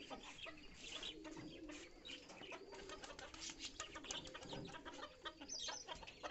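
Pigeons cooing, with many light clicks throughout.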